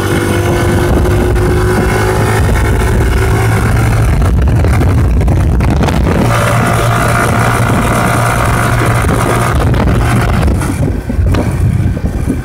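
Scooter engine with a 100cc big bore kit running under way while being ridden, with wind on the microphone. The engine note climbs and strengthens about six seconds in and eases off about four seconds later. The vibration the rider is chasing, which he blames on the variator, clutch or gears, has not yet set in.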